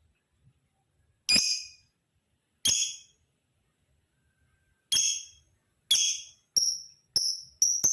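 Male lovebird giving short, shrill chirps, about seven in all, spaced a second or more apart at first and coming faster near the end.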